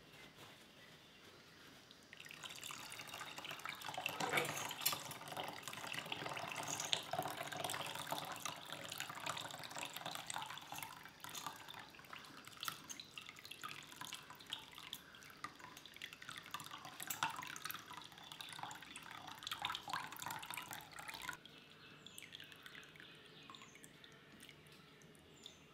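Hot water from rendered honeycomb being strained through a cotton cloth, running and dripping into an enamel pot as the cloth bundle is squeezed. It starts about two seconds in and falls away a few seconds before the end.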